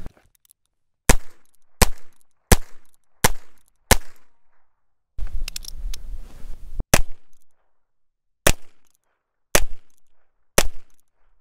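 Heritage Rough Rider .22LR single-action revolver firing a string of sharp shots: about five in quick succession under a second apart, then after a short pause more shots spaced about a second apart.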